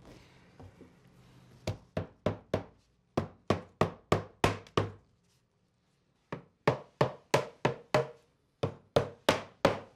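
Mallet tapping the corners of a glued plywood box: sharp wooden knocks in four quick runs of four to seven blows, about three a second, with short pauses between. The blows drive the mitered joints closed on their floating tenons during glue-up.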